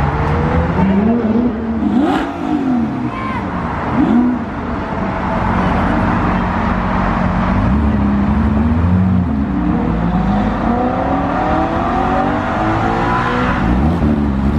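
Supercar engines, among them an Audi R8 and a Porsche 911 GT3, revving and accelerating as the cars pull away, several engines overlapping. The pitch climbs and drops again and again, with a long run of rising revs in the second half.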